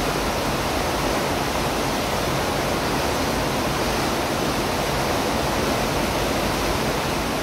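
Steady, even rush of churning water from a ship's wake, fading out at the very end.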